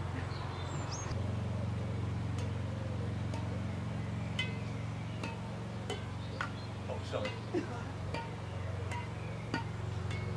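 Badminton rackets striking a weighted shuttlecock in a rally, a string of sharp hits about once a second, over a steady low hum. A bird chirps briefly near the start.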